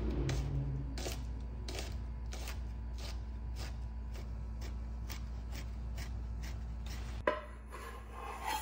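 Chef's knife chopping garlic cloves on a wooden cutting board: steady, evenly spaced knocks of the blade on the board, about three a second. About seven seconds in the chopping stops with a sharp knock, and near the end there is a short scrape as the knife pushes the minced garlic off the board.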